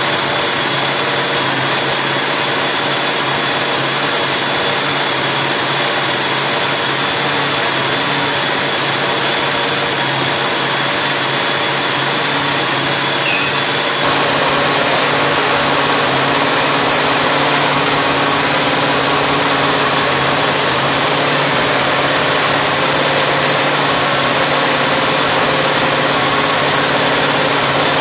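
Engine running steadily after a complete rebuild, its sound changing slightly about halfway through.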